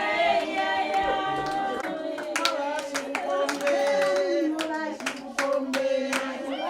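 Several voices singing together, joined about two seconds in by rhythmic handclapping, roughly two to three claps a second.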